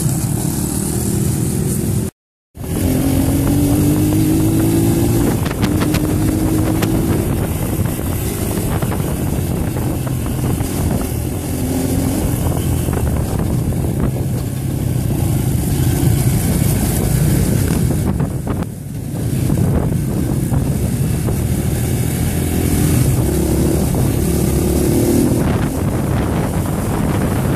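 Dirt bike engine heard from on board while riding, revving and rising in pitch through the gears, with wind buffeting the microphone. The sound cuts out briefly about two seconds in.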